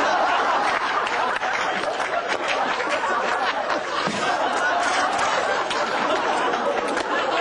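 Many people laughing and chattering at once, a steady mass of overlapping voices and snickers with no single voice standing out.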